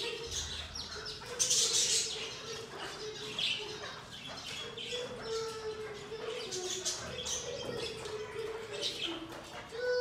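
Courtyard flock of partridges, chickens and pigeons calling and chirping, with a burst of wing flapping about one and a half seconds in.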